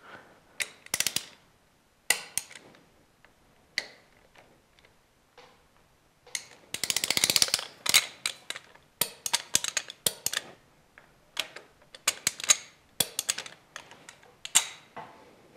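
Torque wrench ratcheting as it tightens the bolts of a Harley-Davidson Twin Cam hydraulic cam chain tensioner to 100 inch-pounds: short runs of ratchet clicks, with a fast, dense run about seven seconds in, and scattered clicks and clinks of the tool being handled.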